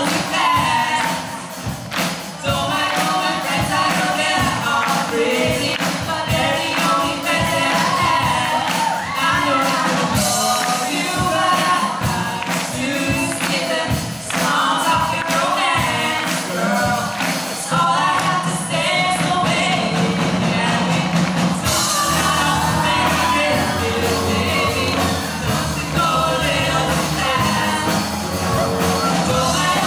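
Live rock band playing: a lead singer over electric guitars and a drum kit.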